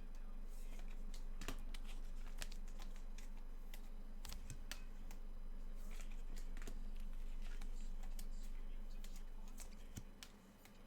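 Scattered light clicks and taps of hands working at a desk, irregular, over a steady low hum.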